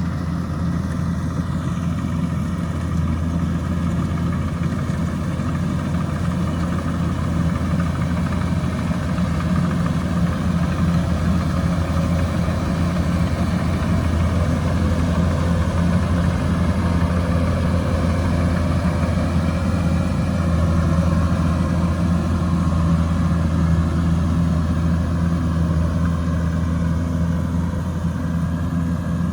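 Kubota DC105X combine harvester's diesel engine and threshing machinery running steadily under load with a constant low hum.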